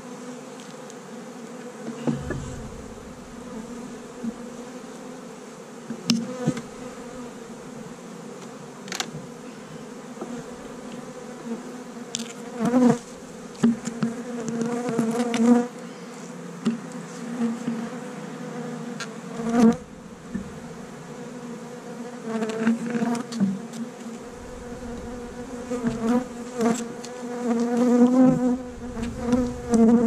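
Honeybees buzzing in flight around opened hives, a steady hum that swells louder now and then as bees fly close by. A few short knocks of wooden hive boxes being handled come through the buzz.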